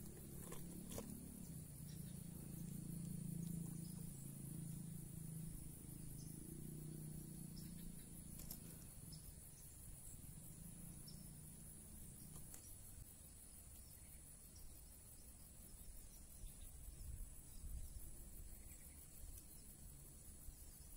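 Faint, steady high-pitched insect chorus. A low hum runs under it for about the first half and then fades out.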